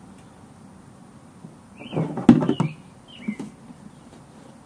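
A sharp knock inside a short low pitched sound about two seconds in, with a few brief high bird chirps around it and a smaller chirp a little over a second later.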